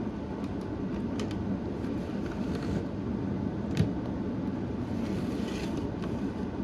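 Steady background hiss with a few small sharp plastic clicks and a brief rustle, as an HO scale model locomotive is handled and set onto model railroad track; one click about halfway through stands out.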